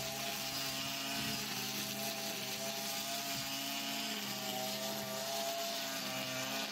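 Petrol brush cutter (motorised grass trimmer) running steadily at working speed while mowing grass, its engine pitch wavering slightly.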